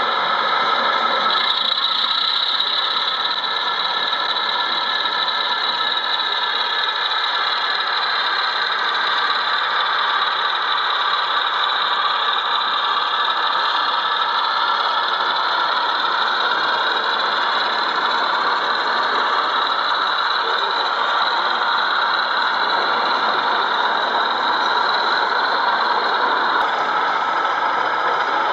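Model BR Class 33 diesel locomotive running along layout track, giving a steady engine-like hum with a high whine over it.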